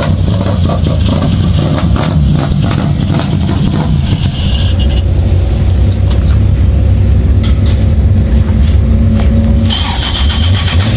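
A vehicle engine running close by with a deep, steady rumble.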